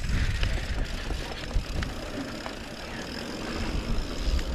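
Mountain bike riding down a dirt trail: tyres rolling over dirt with a low rumble, wind on the camera microphone, and a few light clicks and rattles from the bike.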